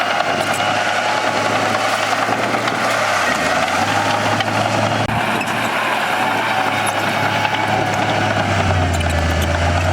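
Bulldozer's diesel engine running steadily at work. Its low note dips briefly about three seconds in and grows stronger near the end.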